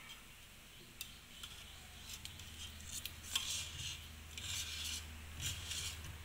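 Flat metal spatula scraping around the inside wall of a steel pot to loosen a steamed colostrum cake from the sides: repeated rasping strokes from about two seconds in, with a couple of sharp taps of metal on the pot.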